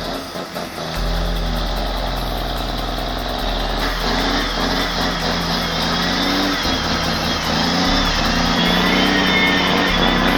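Heavy truck engine running under load, its pitch rising and falling. A thin high whine sits over it, growing stronger in the second half.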